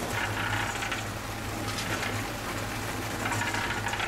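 Wet concrete being tipped from a wheelbarrow and worked into the footings of a plastic flume: three rough scraping, sliding bursts over a steady low mechanical hum.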